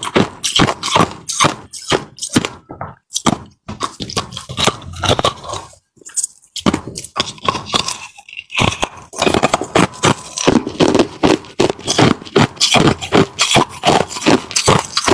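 Ice being crunched and scraped in rapid, irregular crunches, close to the microphone, with a short pause about halfway through.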